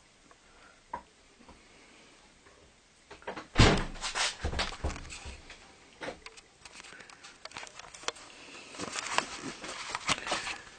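A wooden door bangs shut about three and a half seconds in, after a quiet start, followed by scattered knocks and clatter of things being handled close to the phone's microphone.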